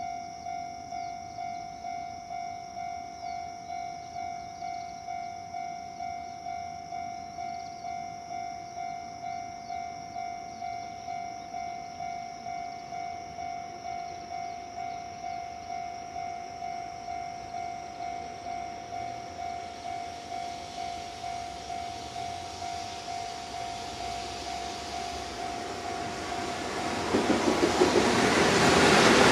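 A level-crossing warning bell ringing steadily about twice a second, then a JR Freight EF210 electric locomotive and its container wagons approaching and passing. The train's rumble grows from about two-thirds of the way in and becomes loud near the end, covering the bell.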